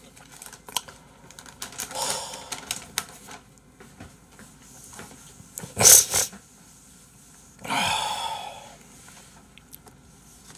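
Scattered light clicks and taps, with one short loud noise about six seconds in and a longer, rushing noise about eight seconds in.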